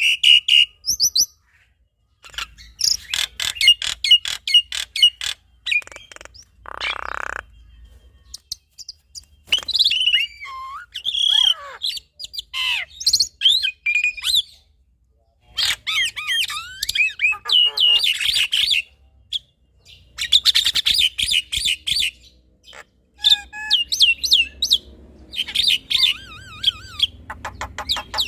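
Black-winged starling and Javan myna singing in a duet of bursts. The song is rapid chattering and clicking with whistled glides, broken by short pauses between phrases, and one harsh rasping call comes about a third of the way in.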